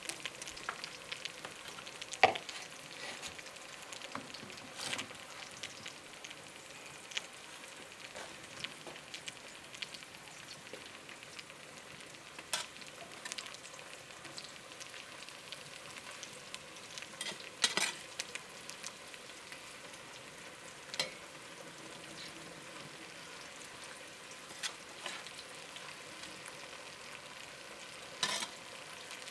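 Steady sizzling hiss from a copper pot of rice on a wood stove, while a metal ladle scrapes and clanks sharply against the pot a handful of times as layers of rice and filling are spooned in.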